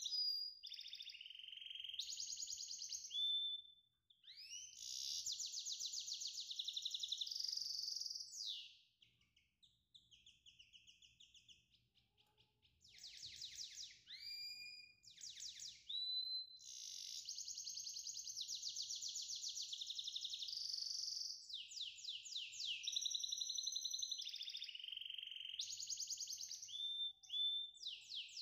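High-pitched songbird song of fast trills, chirps and short whistled notes, with a quieter spell of scattered chirps about nine to twelve seconds in.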